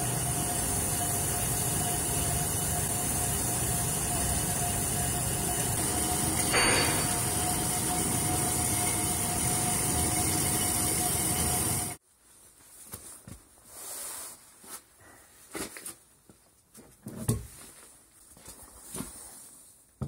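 Metal-cutting band saw running steadily, with a high whine, a thick steel round bar set in it. About twelve seconds in the machine noise cuts off and gives way to scattered knocks and thumps.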